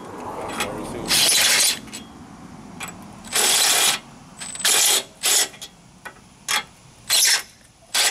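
Drill with a Unibit step drill bit cutting through a steel bumper bracket in a series of short, harsh bursts, enlarging the bolt holes.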